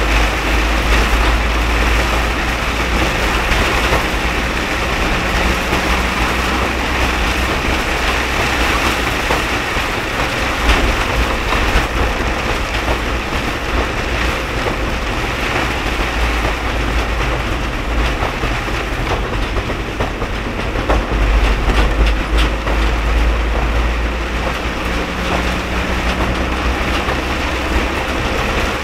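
A car driving through very heavy rain. There is a steady low rumble of engine and road under a continuous hiss of tyres on the flooded road and rain on the car.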